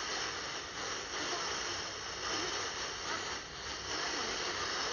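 Hiss and static from a Malahit DSP2 portable SDR receiver's loudspeaker as it is tuned across the medium-wave band, with faint warbling tones under the noise.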